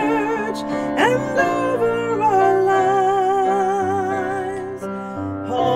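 Solo singer with piano accompaniment: a sung melody with vibrato, including one long held note through the middle, over sustained piano chords.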